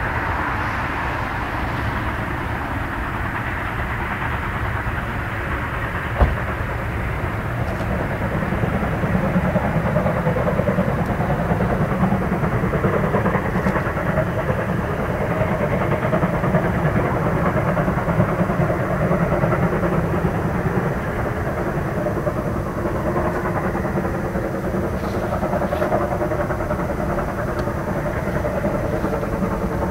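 Freight train hauled by a class 52.80 steam locomotive running along the line: a steady rumble of wheels and wagons on the rails, with one sharp click about six seconds in.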